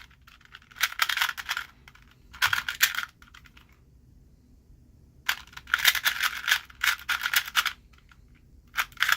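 Plastic 2x2 speed cube (a Cyclone Boys) being turned fast in a timed solve: runs of rapid clicking and clacking, stopping and starting in four spells with short pauses between them.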